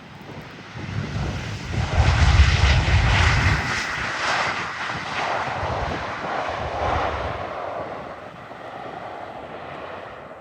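Airliner's engines passing overhead on its landing approach: the roar builds over about two seconds, peaks, then fades slowly, before cutting off suddenly.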